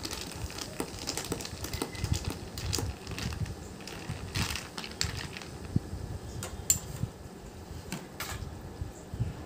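Metal spoon stirring ice cubes in a glass of iced soda, with irregular clinks and clicks of spoon and ice against the glass.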